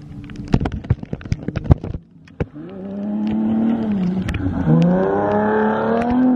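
A car engine revving hard on a drift run, its pitch climbing, dipping briefly about halfway through, then climbing again before dropping off at the end. Before the engine comes in, a couple of seconds of scattered sharp ticks.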